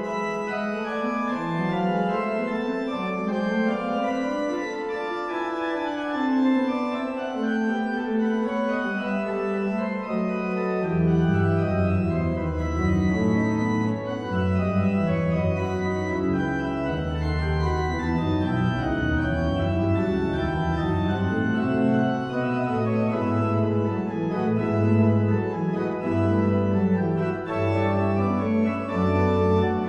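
Organ music: several held notes move together in slow chords, and a deep bass line joins about eleven seconds in.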